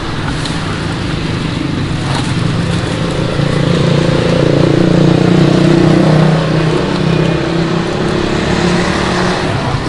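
Road traffic passing close by: a motor vehicle's engine note, steady at first, swells to its loudest near the middle and eases off again.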